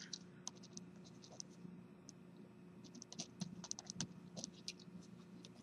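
Pen writing on a paper worksheet: faint scratches and small taps, most of them from about three to four and a half seconds in.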